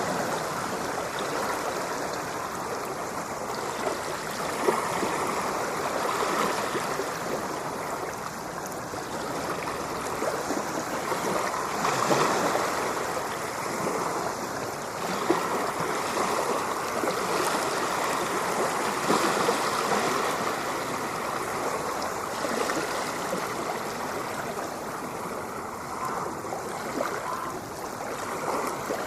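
Steady rush and splash of moving water, swelling and easing every few seconds.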